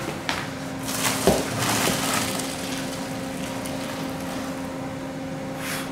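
Fresh pasta and its cooking water poured out of the pot to drain: a rush of splashing water about a second in that lasts about a second, with a knock of the pot. A steady hum runs underneath.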